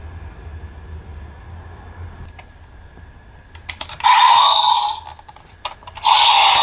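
Plastic clicks as a Power Rangers 2017 FX Power Morpher toy is handled, then a loud electronic sound effect from the toy's speaker about four seconds in, lasting under a second. After a few more clicks, a second loud sound effect starts about six seconds in and keeps going.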